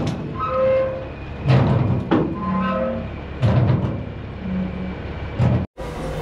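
Heavy diesel earthmoving equipment working: an engine running under a string of clanks and short squealing tones every second or two, with a sudden brief break near the end.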